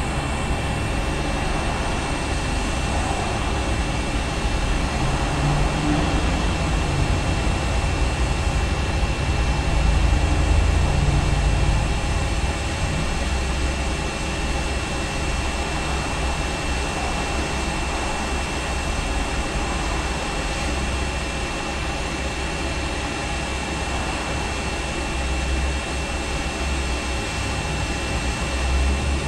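Hot air rework gun blowing steadily onto a circuit board: a constant rush of air with a thin, unchanging high whine, as it heats the solder to lift off a capacitor.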